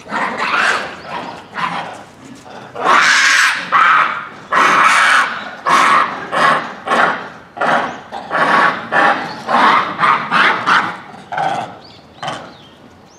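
A troop of Japanese macaques (Macaca fuscata) calling loudly: a long run of short calls, one to two a second, coming one after another.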